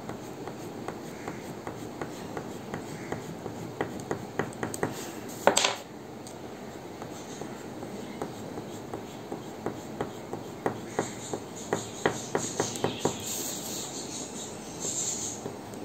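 Crayon strokes on paper, each quick stroke a short scratchy tap, in runs of about three or four a second while palm fronds are coloured. One louder knock about five and a half seconds in.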